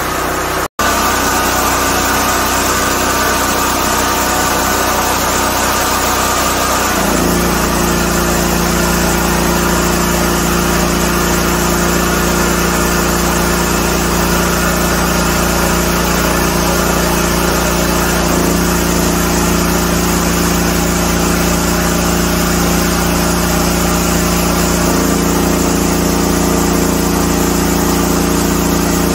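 Generac LP5500 propane generator's engine running steadily under a full load of about 5 kW. Its note changes abruptly about seven seconds in and shifts slightly twice more later on.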